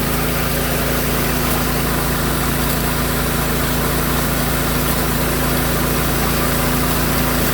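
Engine of a prospecting water pump running steadily at constant speed, a low hum with water rushing through the high banker sluice under pressure.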